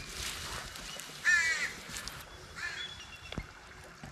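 A bird calling twice, about a second and a half apart, each call short and harsh, the second fainter than the first.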